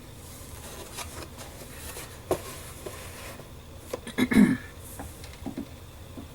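Hands handling a cardboard model kit box: rubbing and scattered light knocks, with the loudest thump a little past the middle.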